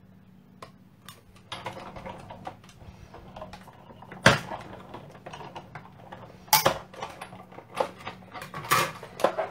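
A Sizzix die-cutting machine feeding a sandwich of plastic cutting plates and circle dies through its rollers to cut circles from stamped card stock. The plates clack and knock irregularly, with a few sharp loud knocks about four seconds in and again in the second half.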